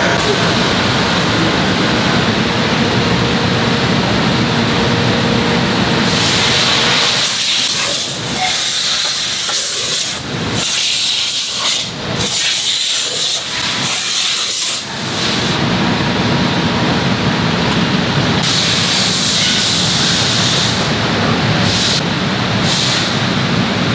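Silicone compression-molding press opening, with loud, steady hissing machine noise. The hiss is brighter, and the low hum drops out in places, from about 6 to 15 seconds in.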